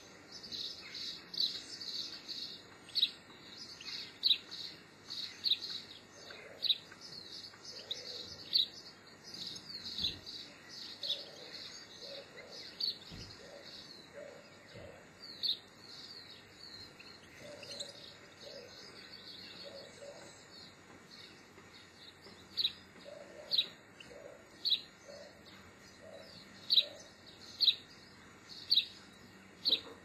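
Small garden birds calling: busy, overlapping high twittering at first, settling into sharp single chirps about one a second in the second half. Faint soft, low repeated notes sit underneath.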